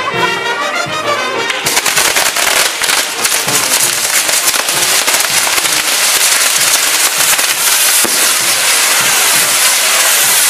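Fireworks from a castillo fireworks tower going off: a falling whistle at the start, then from about two seconds in a dense, continuous crackling of firecrackers.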